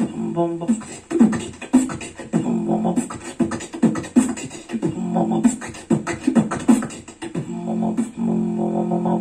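Beatboxing into a microphone: a fast rhythmic pattern of mouth-made kicks and snares over a low hummed tone, settling about eight seconds in into a long held hum.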